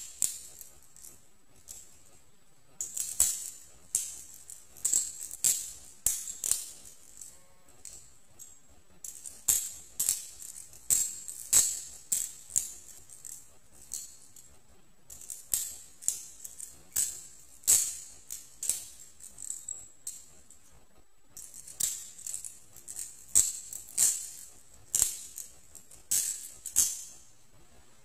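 Balisong butterfly knife being flipped and twirled: its metal handles and latch clack against each other and the pivot in quick runs of sharp, jingling clicks, with short pauses between the runs.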